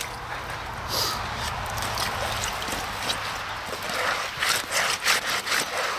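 Water trickling and splashing as a piece of a tank hatch is washed down with a sponge and bucket water, with a run of short scrubbing strokes in the last two seconds.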